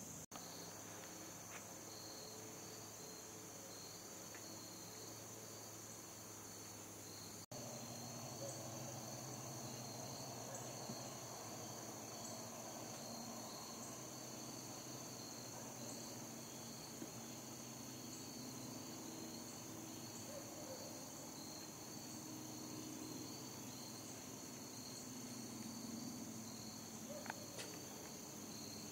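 Steady chorus of crickets and other insects: a continuous high buzz with a quicker pulsing trill just beneath it. A couple of faint sharp ticks sound near the end.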